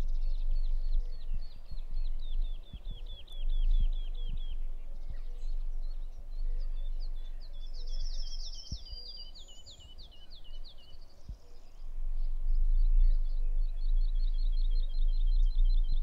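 Songbirds singing in runs of quick falling chirps, about four a second, over a low rumble of wind on the microphone.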